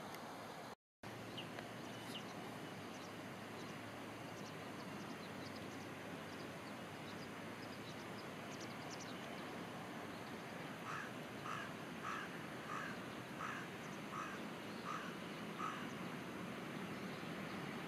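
Steady outdoor background noise with faint, high bird chirps. Past the middle, a bird calls eight times in a row, about one call every 0.7 seconds.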